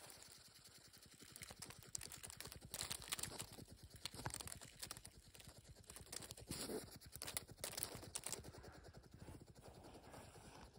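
Hedgehog curled into a defensive ball, giving a rapid run of soft clicks and puffs, louder in several bursts through the middle.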